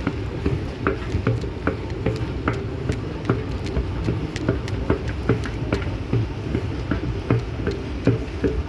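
Footsteps of several people walking on a moving walkway's metal treads, sharp irregular steps about two to three a second, over a low steady rumble.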